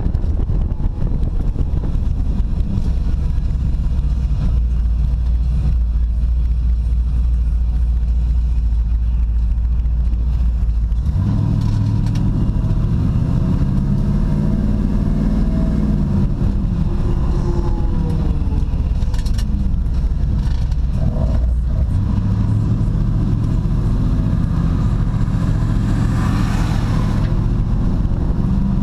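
Engine and road noise of a classic Chevrolet Camaro heard from inside its cabin: a steady low rumble at first, then from about eleven seconds in the engine note comes through stronger, rising and falling with the throttle.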